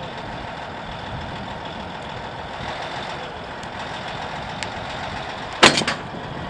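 Caterpillar D8 dozer's diesel engine running steadily as it pulls a tow strap tight. Then, near the end, a single sharp loud bang with a brief rattle as the truck's frame-fastened hitch receiver tears apart at about 21,000 pounds of pull.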